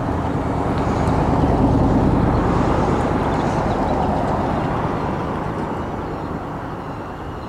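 Wind buffeting the camera's microphone: a loud rushing rumble that swells over the first two seconds and then slowly dies down.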